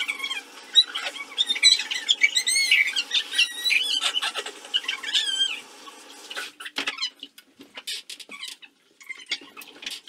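Rapid high-pitched squeaks and warbling, sliding whistle-like tones, thinning out about six seconds in to scattered squeaks and clicks.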